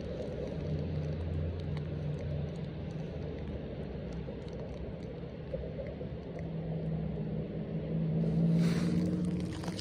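A distant engine droning steadily, its low hum growing louder toward the end, with a brief rushing noise near the end.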